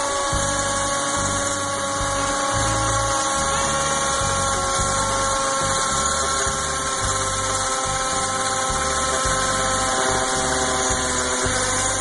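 Electric drill running continuously as its bit drills into the sheet-metal exterior vent hood of a microwave's exhaust. A steady motor whine that sinks slightly in pitch as the bit works.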